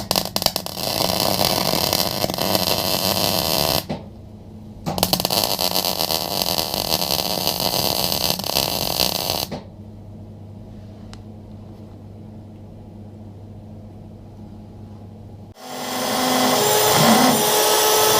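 MIG welder welding a steel bracket onto a car door in two long crackling runs, the welder humming steadily between them. About three seconds before the end a different loud, steady machine sound starts.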